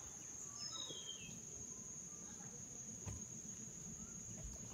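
Steady high-pitched insect drone of tropical forest cicadas or crickets, with a couple of short falling bird whistles about a second in.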